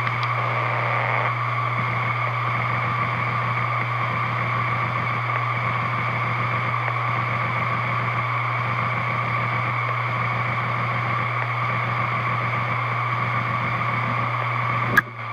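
Hitachi Deskstar 7K1000.C 160 GB hard drive running at its 7,200 rpm spindle speed: a steady low hum with a higher whine on top. A sharp click comes near the end as the drive is powered off and starts to spin down.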